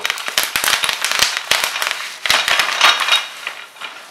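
Bubble wrap popping under a gaming chair's caster wheel as it is rolled over the sheet: quick crackling runs of sharp pops in several bursts, thinning out near the end.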